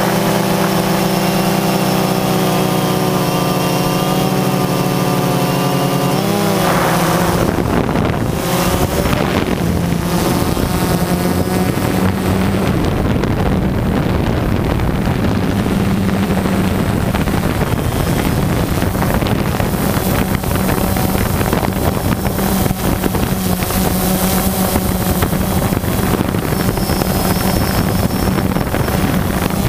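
DJI Phantom 2 quadcopter's brushless motors and propellers humming steadily in flight, picked up by the onboard camera, with wind buffeting the microphone. About six seconds in the hum shifts in pitch and turns rougher and noisier, with more wind.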